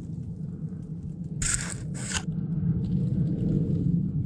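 Someone pushing on foot through dry brush: two short, crackly scrapes of twigs and dry leaves about a second and a half and two seconds in, over a low steady rumble.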